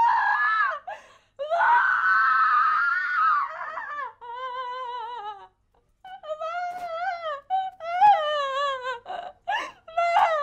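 A woman crying aloud: long, high, quavering wails and sobs broken by short catching breaths.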